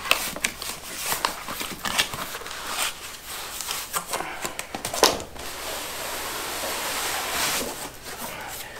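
Cardboard shipping box being opened by hand: flaps pulled apart with scattered crackles, creaks and knocks, and a sharper knock about five seconds in. A steadier scraping slide of cardboard on cardboard follows as the inner box is drawn out.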